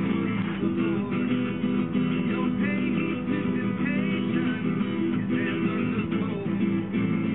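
Acoustic guitar music played live, strummed and picked without a break, with other wavering higher notes over it.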